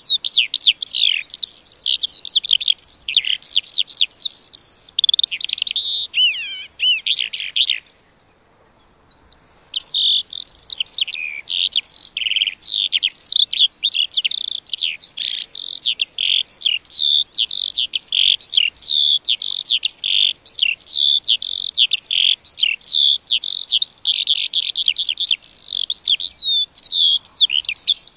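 A lark singing a long, rapid, unbroken stream of varied chirps, warbles and trills. It breaks off for under two seconds about eight seconds in, then carries on.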